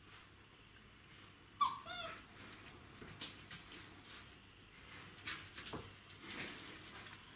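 A 38-day-old Czechoslovakian wolfdog puppy gives one short, high cry that falls in pitch, about a second and a half in. Faint scattered clicks and rustles follow.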